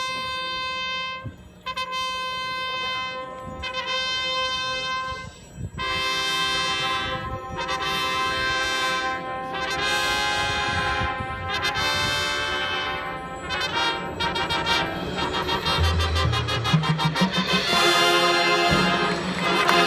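High school marching band brass playing long held chords that change about every two seconds, growing louder and busier near the end as the low notes step upward.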